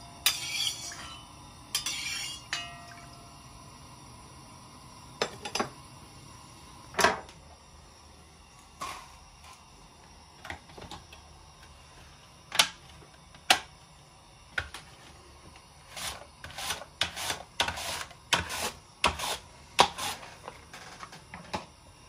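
Scattered clinks and knocks of metal cookware and utensils being handled. A few strikes come in the first half, then a quicker run of them a few seconds before the end.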